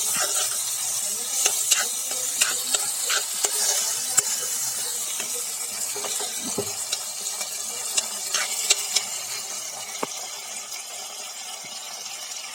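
Food sizzling in a hot cooking pan while a spoon stirs it, clicking and scraping against the pan now and then. The sizzle slowly dies down.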